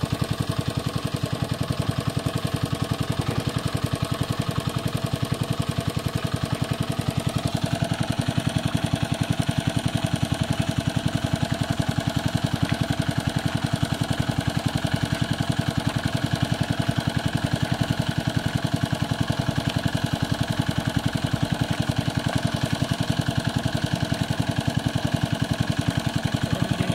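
Small engine running steadily with an even, rapid chugging.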